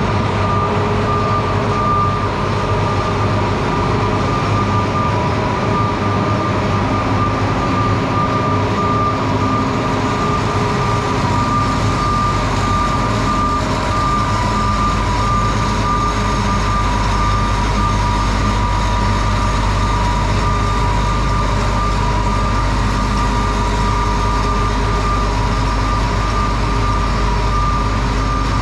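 A heavy vehicle's engine running steadily, with a constant two-note high whine over a deep drone.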